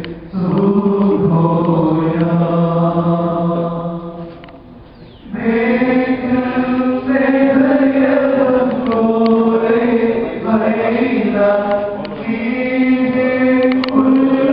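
A group of voices chanting a liturgical hymn in long, held notes. They pause briefly about four seconds in, then resume.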